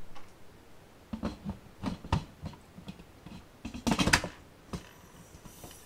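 Lid of an Instant Pot Duo Plus 8-quart electric pressure cooker being set on the pot and twisted shut: a run of light plastic-and-metal knocks and scrapes starting about a second in. The loudest clatter comes about two-thirds of the way through as the lid seats and turns into place.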